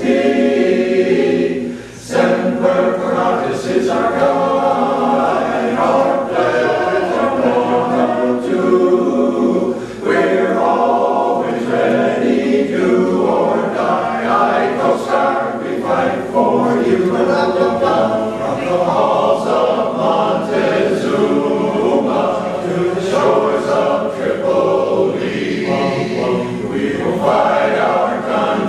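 Men's barbershop chorus singing a cappella in close harmony, with a short breath between phrases about two seconds in.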